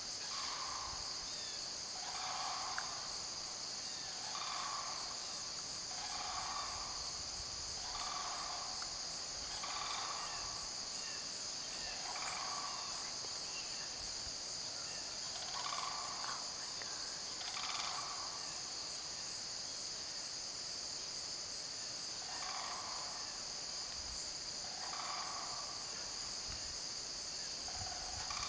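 Sandhill cranes giving short calls about every two seconds, the calls at two slightly different pitches, with a pause of a few seconds past the middle. Under them runs a steady, high-pitched insect chorus of crickets and katydids, the loudest sound throughout.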